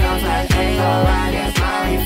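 Instrumental hip-hop/R&B beat played live on a keyboard: synth chords over deep bass kicks that slide down in pitch, hitting about twice a second, with no vocals.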